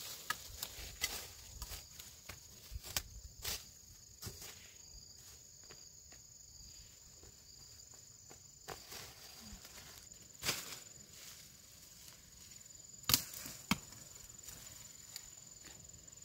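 Irregular sharp strikes of a machete chopping at bamboo and undergrowth, with louder cracks about ten and thirteen seconds in, over a steady high buzz of insects.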